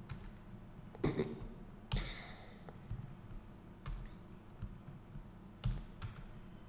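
Computer mouse clicks and keyboard key presses, several separate clicks about a second apart, from selecting vertices and pressing the join key.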